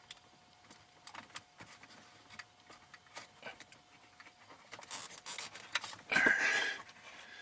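A dash cam power cord being pushed into the minivan's plastic interior trim: scattered light clicks and rustles, then a louder scraping creak of cable against plastic about six seconds in.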